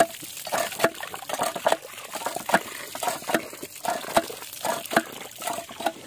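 Water gushing from a cast-iron hand pump's spout and splashing over cupped hands and the ground, with short metallic clanks about twice a second from the pump handle being worked.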